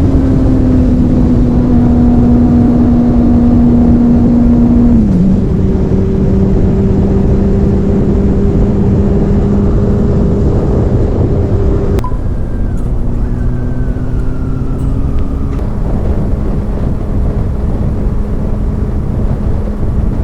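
Honda CB400 Super Four's inline-four engine and exhaust running under way, a steady note over a rushing haze. The pitch steps down about five seconds in. A sharp click comes about twelve seconds in, after which the note slowly falls.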